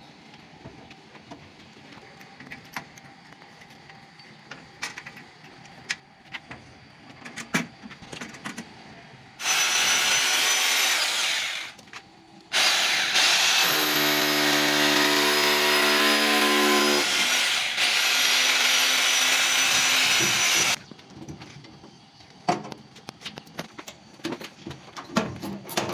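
Electric drill boring into a rendered masonry wall in two runs: a short one of about two seconds starting about ten seconds in, then, after a brief pause, a longer one of about eight seconds. Light taps and clicks of handling before and after the drilling.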